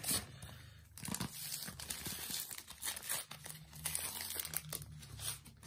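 Wrapper of a Panini Adrenalyn XL trading-card packet being torn open and crinkled, a dense run of irregular crackles.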